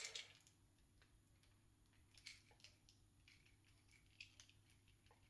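Near silence with a few faint, scattered clicks of a plastic action figure's parts being handled and pulled apart.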